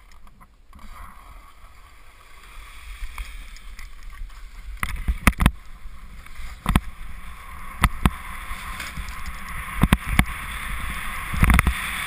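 Wind rushing over the camera microphone, building steadily as a speedflyer gathers speed down a snow slope to launch. A handful of sharp knocks come through from about five seconds in.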